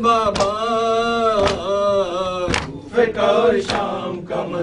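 A man's voice chanting a noha, a mourning lament, in long held lines into a microphone, with sharp hand slaps about once a second keeping time. The slaps fit chest-beating in mourning (matam).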